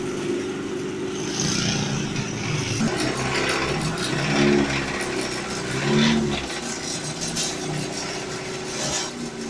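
A motor vehicle's engine running steadily, briefly louder about four and a half and six seconds in.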